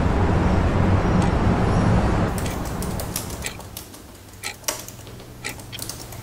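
A loud, steady wash of city ambience, a rumble like distant traffic and wind, cuts off about two seconds in. It gives way to a quiet room with a low hum and scattered sharp clicks of laptop keys being typed on.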